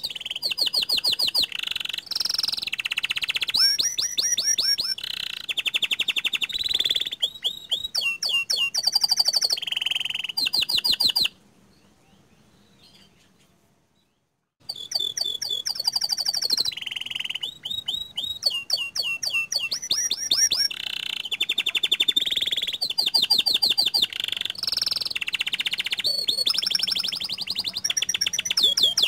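Domestic canary of the pied 'panda' type singing a long song of rapid trills and rolled phrases. The song breaks off for about three seconds in the middle, then resumes.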